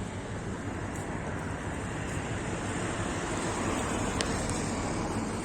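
Steady rushing outdoor background noise, swelling a little toward the middle, with a faint tick about four seconds in.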